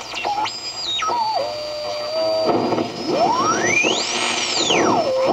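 Kitchin high-performance regenerative receiver whistling as it is tuned while its detector is in oscillation. The heterodyne beat notes step about, then glide up to a very high squeal about four seconds in and back down. The resistive potentiometer throttle can't bring the receiver out of regeneration at the bottom of the broadcast band.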